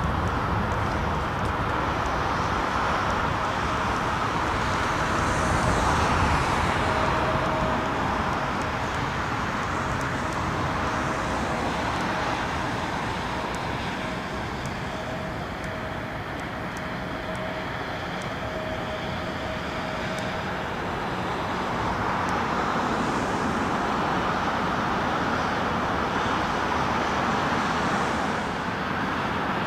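Twin turbofan engines of a Boeing 777 at takeoff thrust during the takeoff roll and climb-out: a steady jet roar with a faint steady whine through the middle, swelling and easing as the aircraft passes and climbs away.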